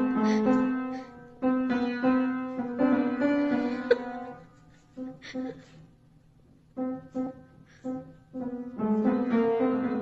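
Upright piano notes sounded by a cat pawing at the keys: a few notes at a time, some held and ringing, with a near pause a little after the middle before the notes start again.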